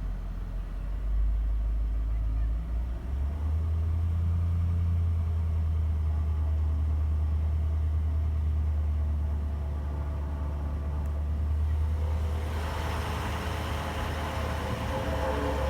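Range Rover L322's 4.4 TDV8 twin-turbo V8 diesel running. Its speed is raised from idle about three seconds in and then held steady in the 1000–1100 rpm band, where the owner hears a rattle. Near the end a brighter, harsher sound joins the low engine drone.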